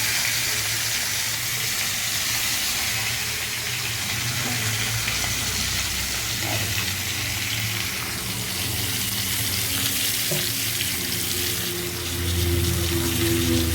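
Marinated fish pieces sizzling steadily as they are laid into hot oil tempered with nigella seeds in a kadai. Background music comes in near the end.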